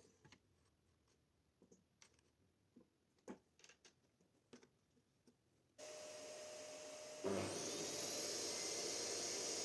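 A few faint clicks and knocks of handling wood and tools, then a steady motor hum with hiss switches on about six seconds in. About a second later the table saw's motor starts with a thump and a whine that rises quickly and settles into steady running.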